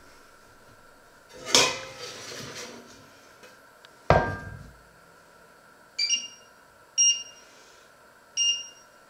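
A stainless steel pot and its lid are handled on a glass-top stove: a metallic scrape and rattle, then a single sharp clank about four seconds in. After that come three short electronic beeps about a second apart from the stove's touch controls.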